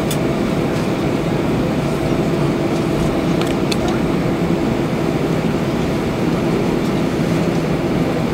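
Steady cabin noise of an Airbus A320-214 on the ground, its CFM56 engines at idle giving a constant hum, heard inside the passenger cabin. A couple of faint clicks come about three and a half seconds in.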